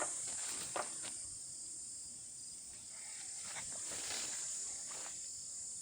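Steady high-pitched chorus of insects such as crickets, with a few short, soft, noisy sounds nearby.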